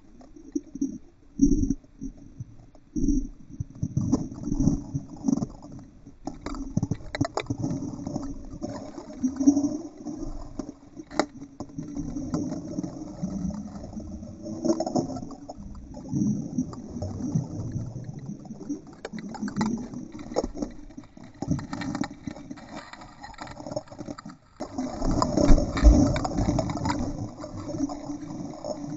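Water churned by an Entlebucher mountain dog's paddling legs, recorded underwater through a camera's waterproof housing: muffled, irregular low knocks and churning with bubbling. The sound drops out briefly about three-quarters of the way through, then comes back louder.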